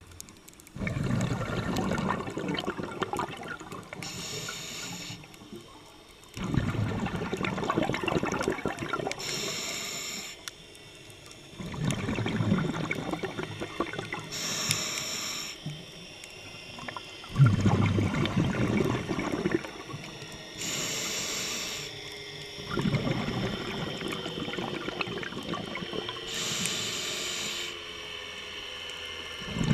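Scuba diver breathing through a regulator: about five slow breath cycles, each a short hiss of inhaling followed by a few seconds of rumbling exhaled bubbles.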